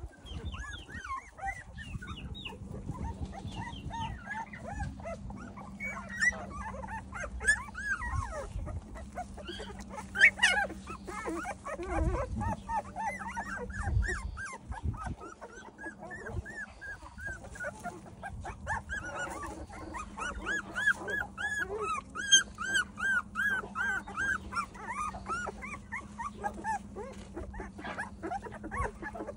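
A litter of young puppies whimpering and squealing: many short, high cries that rise and fall, often overlapping, with a quick run of about three a second a little past the middle. A faint steady hum and a few low rumbles lie underneath.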